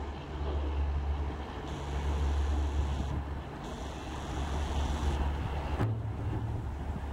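Express passenger train rolling away into the distance, a steady low rumble of wheels on track, with wind buffeting the microphone. The sound changes suddenly a little before the end.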